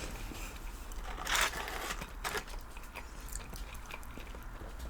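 Eating crunchy KFC fried chicken: a crisp bite about a second and a half in, then chewing with small scattered clicks.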